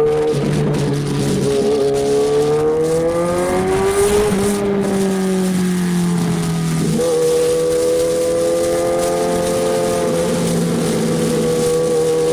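Kawasaki Ninja 1000SX inline-four engine heard from the rider's seat while riding. Its note rises until about four seconds in, falls there, jumps back up at about seven seconds and then holds steady, over wind rush.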